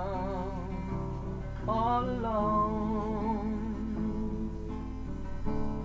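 A song: a man's voice holds a long sung word with vibrato, starting a little under two seconds in, over a steady guitar accompaniment.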